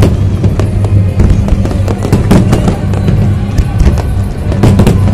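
Aerial fireworks going off in a dense barrage of sharp bangs, one after another, over loud music with a steady bass.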